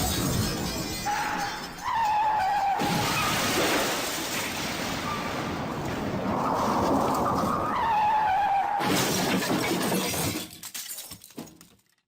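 Car crash sound effect: tyres squeal several times over a long, loud crash of breaking glass and metal as the car rolls over. Near the end it breaks into scattered clattering debris that fades out.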